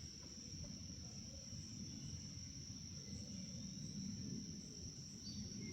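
Insects trilling steadily at one high pitch, with a faint low rumble underneath.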